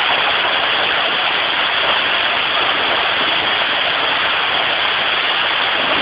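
Waterfall water pouring down a rock face close at hand: a steady, even rush with no breaks.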